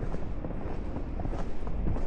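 Footsteps crunching through fresh snow at a walking pace, over a steady low rumble of blizzard wind buffeting the microphone.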